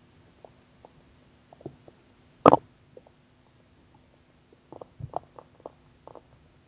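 A hungry woman's empty stomach gurgling and growling in a scatter of small pops and bubbling gurgles, with one much louder burst about two and a half seconds in and a run of them between about four and a half and six seconds.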